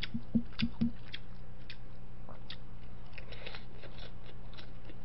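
Close-miked chewing of spicy tteokbokki rice cakes: wet mouth clicks and smacks, several sharper ones with low thumps in the first second, then fainter scattered clicks. A steady low electrical hum runs underneath.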